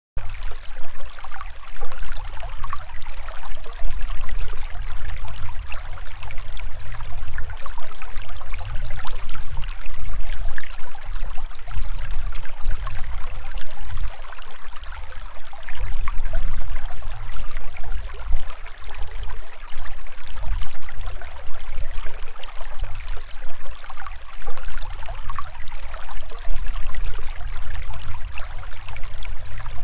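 Shallow, fast mountain stream rushing and gurgling over rocks and gravel, recorded close to the water, a steady rush with a low, uneven rumble underneath.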